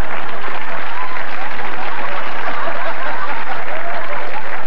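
Studio audience laughing and applauding: a dense, steady wash of many voices laughing mixed with clapping.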